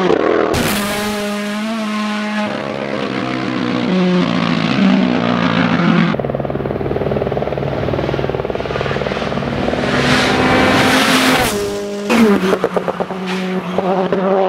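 Rally car engines revving hard on a tarmac stage, their pitch rising and falling through gear changes as several cars pass in turn, with sudden cuts between them. Near the end the engine note stutters in quick bursts as a car slides through a corner.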